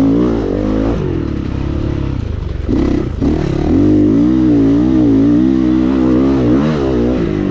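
GPX 450 four-stroke dirt bike engine revving up and down as it is ridden, with a short drop in throttle about three seconds in.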